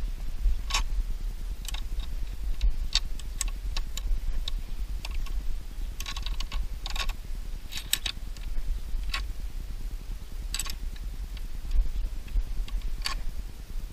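Irregular small metallic clicks and ticks as the fuse screws on a car-audio fuse block are loosened one after another by hand, over a steady low rumble.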